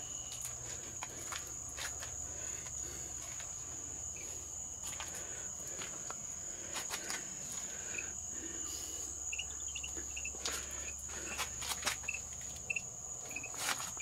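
Steady high-pitched chorus of night insects such as crickets, with scattered clicks and knocks from handling and movement, more frequent in the second half.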